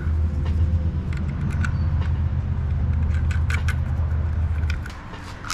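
A steady low mechanical hum that stops near the end, with scattered light clicks of small metal hardware being handled.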